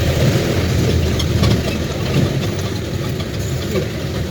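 Vehicle engine running steadily with road noise, as heard from a vehicle on the move.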